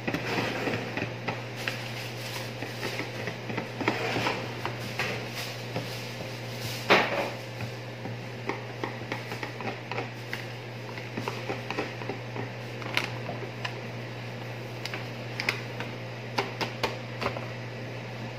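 Wire whisk beating batter in a bowl: rapid, irregular clicking and scraping of the wires against the bowl, with one sharper knock about seven seconds in. A steady low hum runs underneath.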